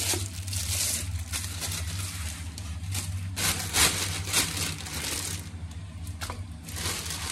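Plastic bags crinkling and rustling as raw chicken is pulled out of them and handled into a steel pot, in irregular crackling bursts over a steady low hum.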